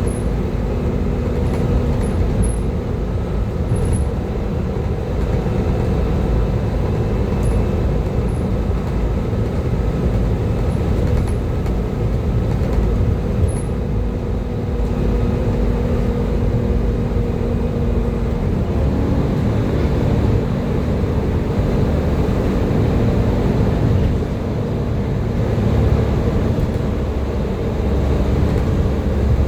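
Volvo B7TL double-decker bus engine running steadily with the whistling, vacuum-cleaner-like 'Hoover' note it is known for. About two-thirds of the way through, its pitch steps up as the revs rise.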